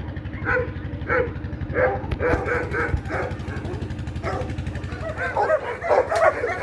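Dog barking repeatedly, short barks about every half second that come faster near the end, over a steady low rumble.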